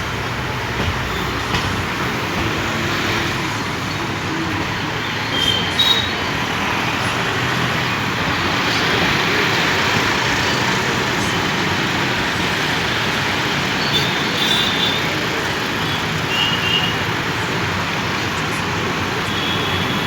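Steady railway noise, an even rumble and rushing hiss, with several brief high-pitched squealing tones scattered through it.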